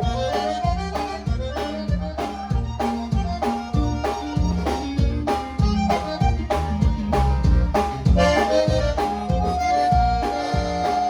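Live conjunto music between sung verses: a button accordion plays a melody over bajo sexto, bass and drums keeping a steady beat.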